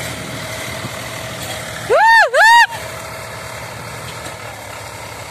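Tractor engine running steadily, with two loud tones that each rise and then fall in pitch, back to back about two seconds in.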